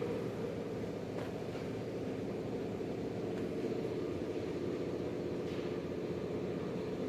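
A steady low mechanical hum from a running machine, unchanging throughout, with a few faint clicks.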